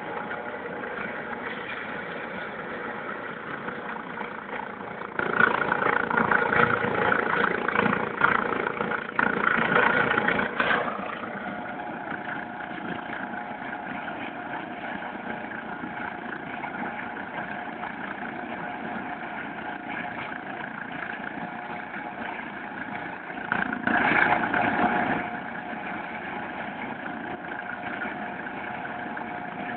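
Eurocopter EC155 helicopter running on the ground: a steady turbine whine with several held tones. Two louder, noisier stretches rise over it, a longer one from about five seconds in and a shorter one about three-quarters of the way through.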